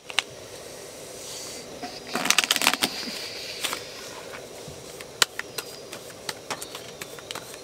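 Playing cards being shuffled and dealt onto a table: a quick run of rapid card flicks about two seconds in, then scattered single clicks as cards are dealt.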